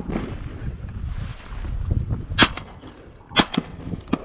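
Shotgun shots about a second apart, sharp cracks each with a short echo, over a steady low wind rumble.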